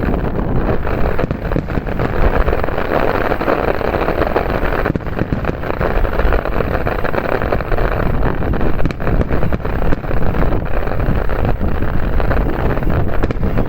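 Fireworks finale barrage: a dense, continuous rumble of bursts with crackling throughout.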